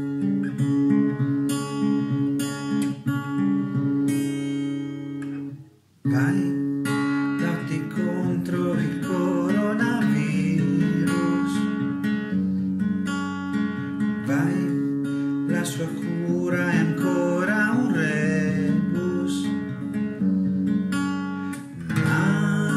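Song with strummed acoustic guitar. It breaks off briefly about six seconds in, then starts again with a voice singing over the guitar.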